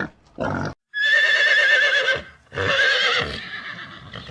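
Horse whinnying twice: a long quavering call, then a second call that trails off, after a single short grunt near the start.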